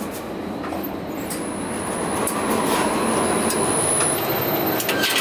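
Subway train noise in the station: a steady rumble that swells about two seconds in, with a thin high whine over it. A few sharp clicks come as the inclined elevator's steel doors open.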